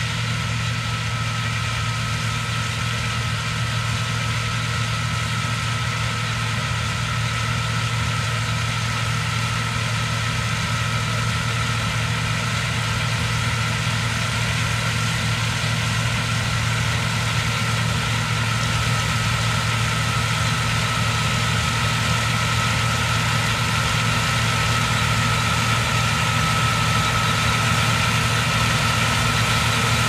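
John Deere combine harvester running under load while harvesting, a steady engine drone with a high whine over it, growing slowly louder.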